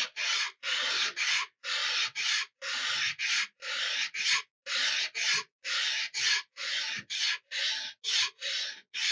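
Steel plane iron being lapped flat on 100-grit aluminum oxide sandpaper: a steady rhythm of gritty rasping strokes back and forth, about two a second, each separated by a brief pause as the stroke reverses. The abrasive is taking steel off the rusty, pitted back of the iron.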